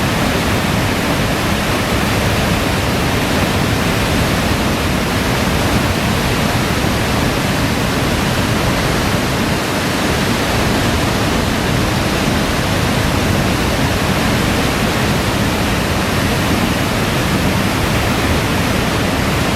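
Tobalina waterfall: falling water rushing in a loud, steady, even roar.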